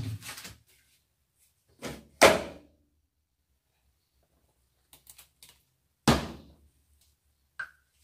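Plastic knocks from handling a Toshiba AW-J800A-PH top-loading washing machine: a thud at the start, a sharp snap about two seconds in as the detergent dispenser drawer is pushed shut, and a thud about six seconds in as the lid comes down. Faint taps in between and a short click near the end.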